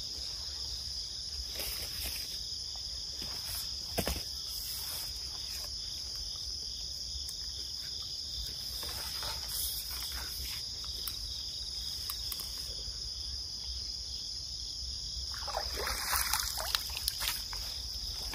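Crickets chirring steadily in one continuous high drone, with a few scattered clicks and knocks of fishing tackle being handled and a brief rustle near the end.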